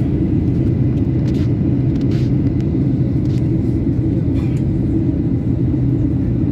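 Steady low rumble of an airliner heard from inside the passenger cabin: engine and airflow noise during the approach. A few faint clicks sound over it.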